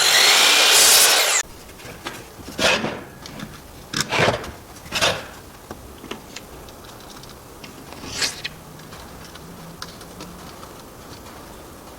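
A power tool runs loudly for about the first second and a half and cuts off suddenly. Then come a few scattered knocks and rubs of wooden workpieces being handled.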